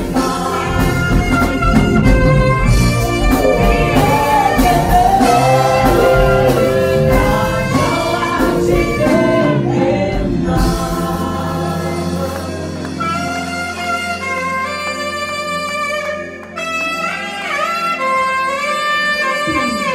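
Two saxophones playing a gospel-jazz duet over a full band with a steady beat and bass. About ten seconds in, the drums and bass drop out, leaving the saxophone lines over a held low chord.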